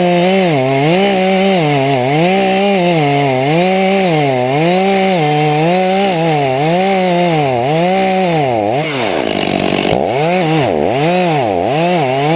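Chainsaw engine running near full throttle, its pitch rising and falling over and over. In the last few seconds the dips get deeper and quicker.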